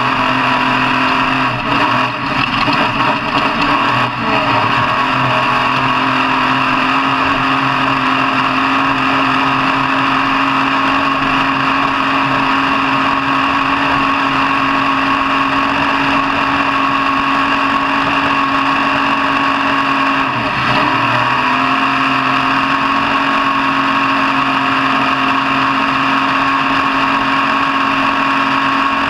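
Off-road truck engine running hard at high, nearly constant revs for long stretches. The revs waver briefly about two seconds in and dip and come back up about twenty seconds in.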